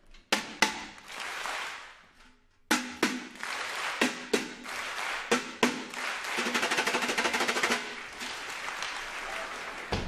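Sharp clanks of a metal ladle striking a galvanized steel bucket: two near the start, then a run of strikes from about three seconds in, each with a short metallic ring. Audience applause comes and goes underneath, thickening into dense rapid clapping about six seconds in.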